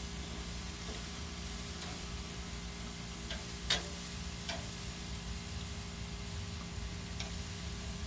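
Scattered crackles and pops from the live fire and cooking meat on an Argentine grill, with one louder pop a little before halfway, over a steady low hum.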